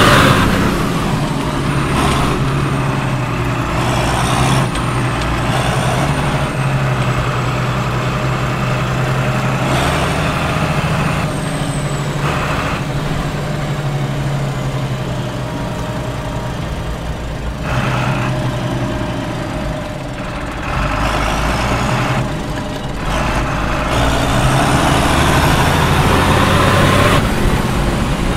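Case CS 150 tractor's diesel engine running under load, heard from inside the cab, its note shifting up and down in level. Several short hisses and a faint high whistle that rises and falls come through over the engine.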